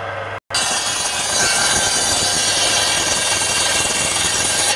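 Circular saw bench blade ripping lengthwise through a palm log: a loud, steady hiss-and-whine of the blade cutting wood that starts about half a second in and holds until the cut eases off near the end. Before the cut the blade spins free with a low hum.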